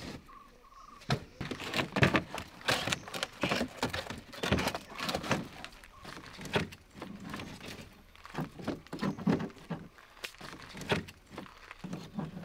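Camping gear being packed into a car's boot: rustling fabric and irregular thuds and knocks as bundles are shoved into place.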